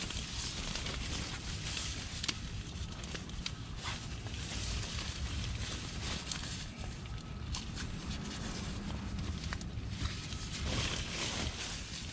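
The nylon shell fabric of an Outdoor Research Alpine AscentShell bivy sack rustling as it is handled, with scattered small clicks.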